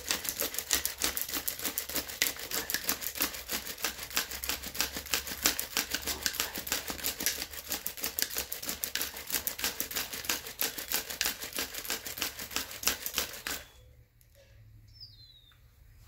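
Bow drill worked fast: the wooden spindle spinning against the fireboard gives a rapid, continuous rasping with each back-and-forth stroke of the bow, wood grinding on wood to build an ember. It stops suddenly about 13 seconds in, leaving faint bird chirps.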